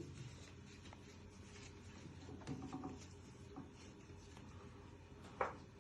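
Faint rustling and light scratching of hands handling electrical cable and an old pull-cord cable, with a short sharper sound near the end.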